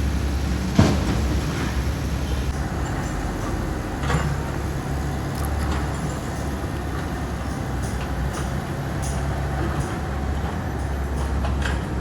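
Excavator engine running steadily at a low hum, with a sharp metallic clank about a second in and a smaller knock around four seconds in, plus a few faint clicks later.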